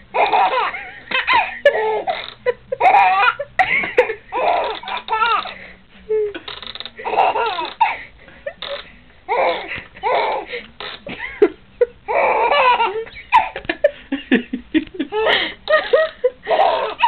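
A baby laughing hard, in repeated fits of laughter with short pauses for breath between them.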